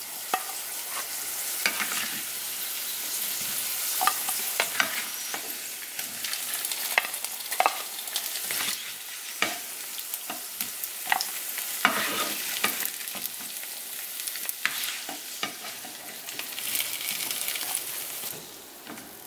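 Fried potato chunks sizzling in hot oil in a nonstick frying pan while a spatula scrapes and scoops them out, with frequent clicks and taps against the pan and plate. The sizzle drops away near the end.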